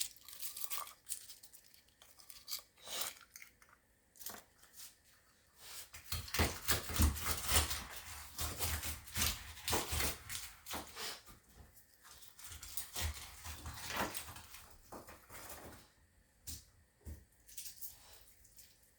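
Garlic cloves being peeled by hand: dry papery skins crackling and tearing in irregular small clicks and rustles, thickest through the middle, with a few dull bumps.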